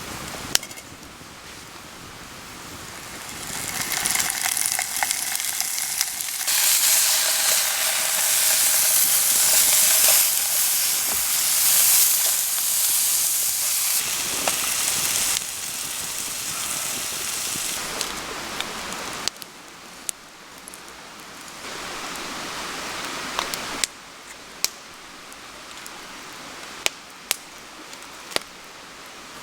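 Food sizzling over a campfire, a dense hiss that swells a few seconds in, is loudest through the middle, then drops back in steps. Sharp crackles of burning wood sound now and then throughout.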